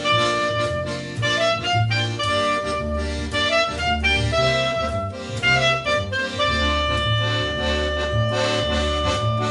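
Live instrumental music: an accordion playing a sustained, stepwise melody over a steadily moving bass line.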